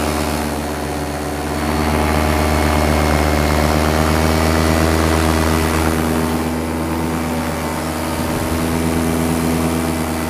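Paramotor's single-cylinder two-stroke engine and propeller running steadily in flight, heard close up from the harness. The throttle comes up a little about a second and a half in and eases back around six seconds in.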